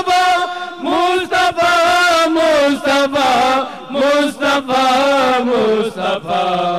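Male voices chanting an Urdu naat, a devotional song to the Prophet, in long, drawn-out melodic phrases.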